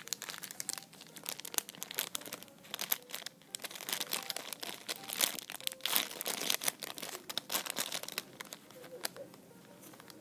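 Clear plastic zip-lock bags crinkling as the bagged squishy toys are handled and turned over, a dense run of small irregular crackles that is busiest in the middle.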